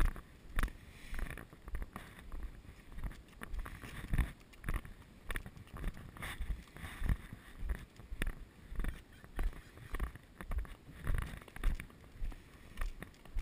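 Footsteps of someone walking on a concrete path: a steady rhythm of low thumps, about three steps every two seconds.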